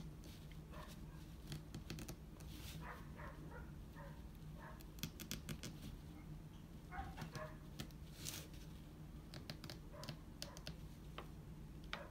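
Safety pin scratching into a banana peel: faint, irregular scratches and small clicks, over a steady low hum.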